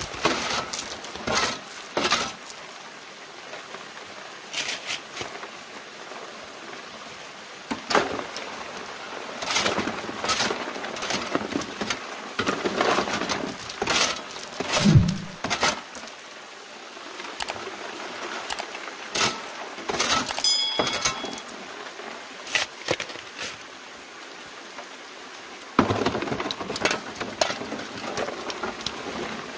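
Shovelfuls of stream gravel tipped onto the steel screen of a water-fed sluice box: stones rattling and scraping on the metal at irregular intervals, over steady running water.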